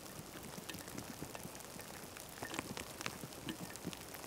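Light rain: individual raindrops landing close by as irregular sharp ticks, several a second, over a faint steady hiss.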